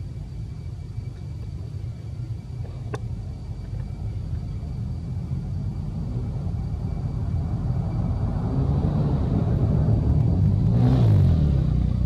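A motor vehicle engine over a steady low rumble, growing louder over several seconds to a peak about a second before the end, its pitch sliding as it passes. A single sharp click about three seconds in.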